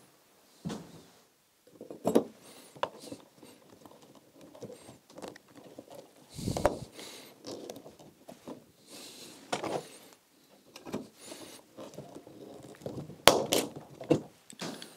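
Rivet gun setting blind rivets through a steel hinge bracket into a polyester bonnet: a run of irregular clicks and clunks as the tool is worked, with the loudest sharp click about thirteen seconds in.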